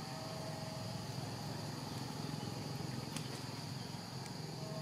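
Steady, high-pitched insect chorus, with a couple of faint clicks about three seconds in.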